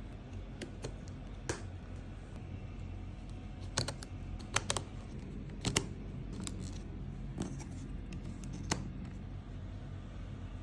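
Jigsaw puzzle pieces being handled and set into place: about a dozen light, irregular clicks and taps over a steady low hum.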